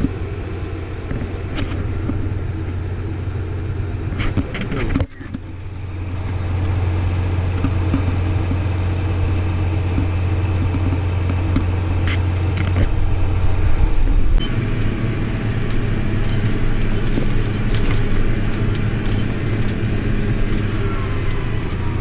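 Farm vehicle engine droning steadily, with light rattling clicks over it; the level dips briefly about five seconds in, and the drone shifts slightly in tone about two-thirds of the way through.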